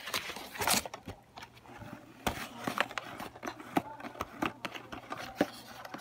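Cardboard toy box being handled and opened: irregular scrapes, taps and knocks of cardboard and packaging being pulled about.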